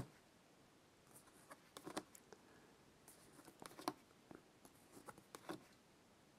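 Near silence with faint, scattered clicks and rustles of collector cards being handled.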